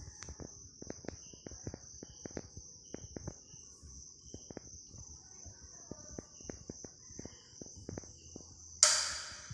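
Crickets chirring in one steady high-pitched drone, with scattered light clicks and taps. One sudden loud bang comes near the end.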